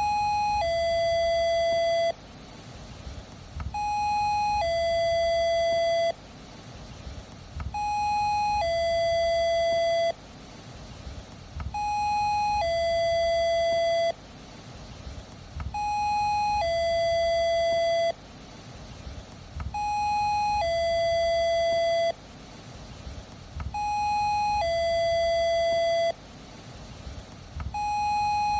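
Doorbell chiming a two-note ding-dong, a short higher note followed by a longer lower one, repeated about every four seconds, eight times in a row.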